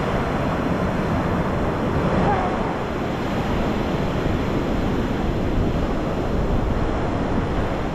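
Ocean surf washing steadily on the beach, with wind rumbling on the microphone.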